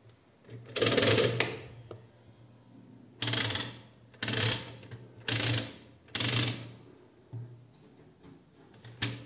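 Regina B8 mechanical adding machine being cleared, one long ratcheting rattle, then set by hand: four shorter ratcheting runs as four digit slides are pulled through to 9, and a single sharp click near the end as a slide is set to 1.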